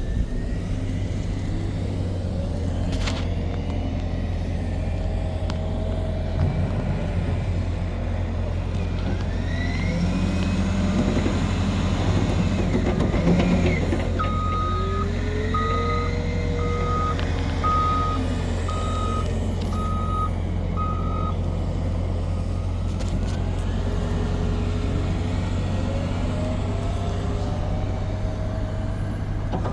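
Diesel front-end loaders working, the engine running steadily with its pitch rising and falling as it revs. Around the middle a reversing alarm beeps about once a second, seven times, and a few sharp knocks come through.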